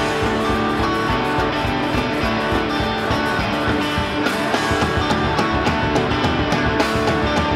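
Indie punk rock band recording: strummed guitars over a steady beat.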